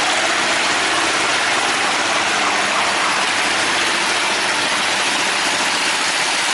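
Steady rushing of water with a boat engine running underneath, a constant hiss with a low hum and no change throughout.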